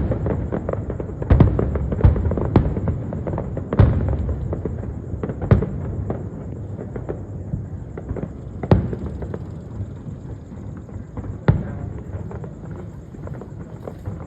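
Aerial fireworks bursting: a sharp bang every second or two over a continuous low rumble and crackle of shells. The barrage thins out toward the end.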